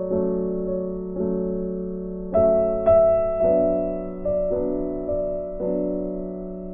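Background music: slow, gentle piano chords, a new chord struck about every second.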